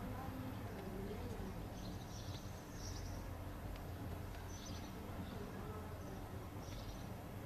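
Outdoor ambience: small birds chirping briefly several times over a steady low background rumble.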